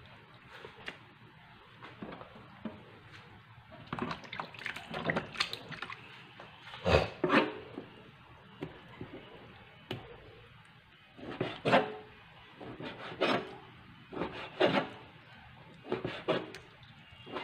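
Kitchen knife cutting raw pork on a cutting board: irregular knocks of the blade striking the board, in short clusters, with quieter slicing between them.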